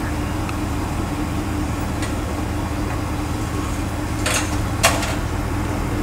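Aerial lift truck's engine idling with a steady low hum. A brief rustle comes about four seconds in, and a sharp click just before five seconds.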